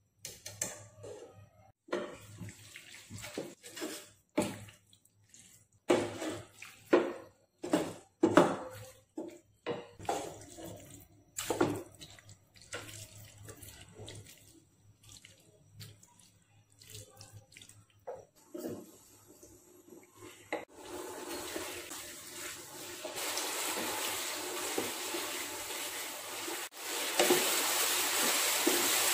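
Wooden spatula stirring and tossing pasta in a nonstick pan, with irregular scrapes and knocks against the pan. From about twenty seconds in, a steady rushing hiss rises and becomes the loudest sound.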